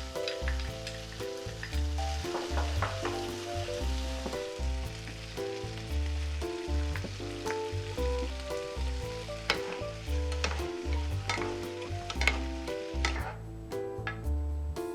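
Sausage and vegetables sizzling as they are stir-fried in an oiled pan, with sharp clicks of a utensil against the pan. The sizzling stops abruptly near the end.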